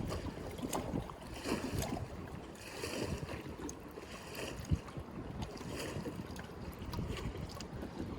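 Wind rumbling on the microphone over open water, with scattered small knocks and soft splashes about every second and a half.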